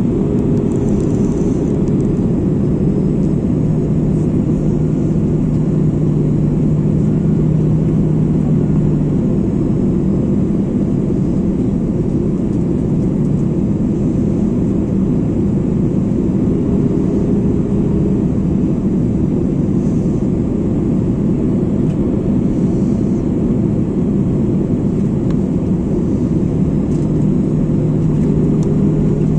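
Steady cabin noise of an Airbus A330 airliner in flight, heard from a window seat beside the wing: engine drone and airflow rush with a low steady hum. The hum fades about a third of the way in and comes back near the end.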